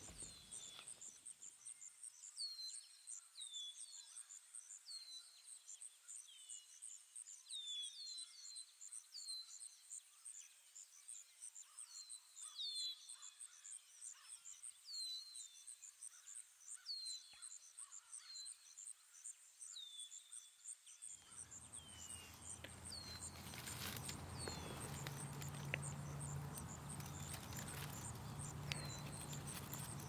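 Faint forest ambience: a bird repeats short downward-sliding chirps every second or so over a steady, evenly pulsing high trill. About two-thirds of the way in, a low hum and a rustling noise come up beneath them.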